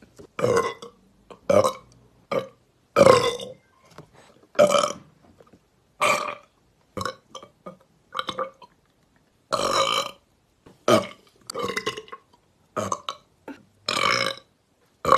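A girl burping loudly over and over: about twenty separate burps, mostly short with a few longer drawn-out ones, with brief silent gaps between them.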